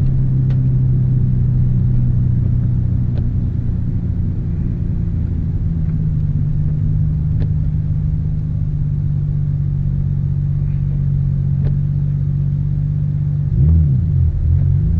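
Nissan Skyline R32 GT-R's 2.6-litre twin-turbo straight-six running at low, steady revs, heard from inside the cabin while driving slowly. The engine note steps up slightly about six seconds in, and near the end it dips and rises again.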